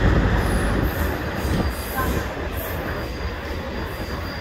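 Passenger train of LHB coaches rolling past on the adjacent track: a steady rumble of wheels on rail, louder in the first second, then settling.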